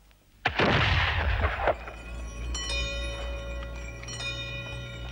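An old muzzle-loading cannon fires the daily noon gun: one sudden loud blast about half a second in, its rumble dying away over about a second.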